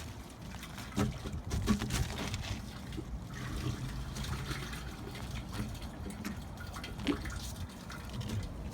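The last of the black-tank waste water trickling out through an RV sewer dump hose as the hose is lifted to help it drain, with a few light knocks from handling the hose.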